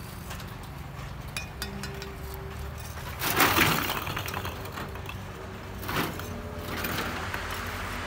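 Bricklaying work noise: light clinks and taps of bricks and tools, a louder half-second rough burst a little over three seconds in and a shorter one about six seconds in, over a steady low hum.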